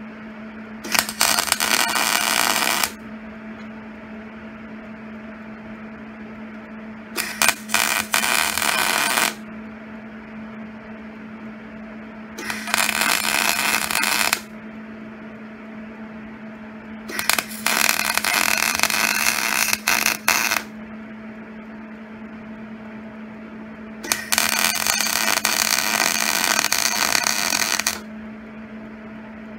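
MIG welding arc crackling and sizzling in five short bursts of two to four seconds each, with pauses between, as beads are laid on a preheated cast iron stove leg; the passes are kept short so the heat does not crack the cast iron. A steady hum sits under the bursts.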